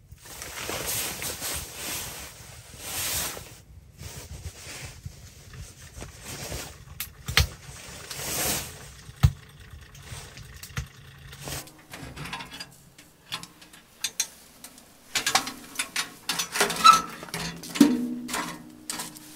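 Wood fire burning in a Pomoly tent stove, with swells of rushing noise and a few sharp pops. In the last several seconds, metal clicks, knocks and a short ring as the stove door is handled.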